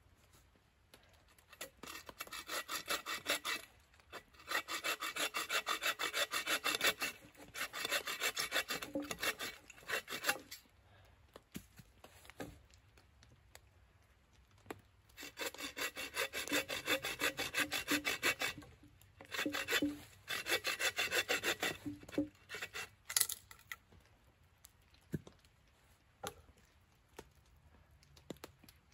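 Hand saw cutting through a stick of firewood: quick back-and-forth rasping strokes in several runs of two to four seconds, with a pause in the middle and a few sharp knocks of wood near the end.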